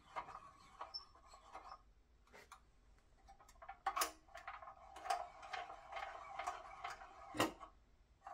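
Hand-cranked cable winch of a restored 1959 Tonka dragline toy being turned to wind in the cable. It gives a run of irregular metallic clicks over a steady tone, and the loudest click comes near the end.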